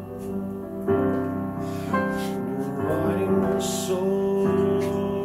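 Background music with sustained keyboard chords that change a few times.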